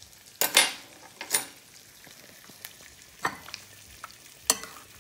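Metal spoon scraping and clinking against a glass bowl of buttery mashed squash: a few sharp knocks, the loudest about half a second in and another near the end. Under them runs a faint steady sizzle of eggs frying in butter on the Aga's hotplate.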